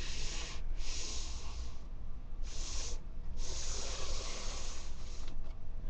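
A person breathing noisily, four hissing breaths one after another.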